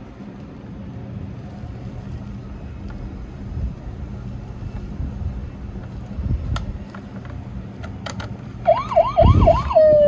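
Toy emergency-vehicle siren: near the end a loud, fast wail rises and falls four times in about a second, then a single tone slides downward. Before it there is a low steady hum with a few sharp clicks.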